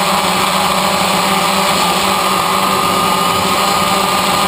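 DJI Phantom quadcopter's electric motors and propellers buzzing steadily in flight, a constant whine over a low hum with no change in pitch or level.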